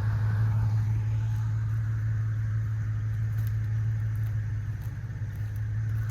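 Off-road vehicle engine running at a steady, unchanging speed: a constant low drone with a hiss above it.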